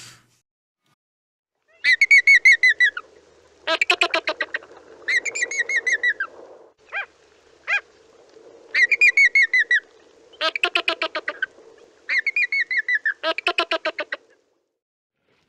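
Andean flamingos calling: a string of honking calls, some held with a rise and fall in pitch and some broken into fast rattling pulses, over a faint low murmur. The calls stop about a second before the end.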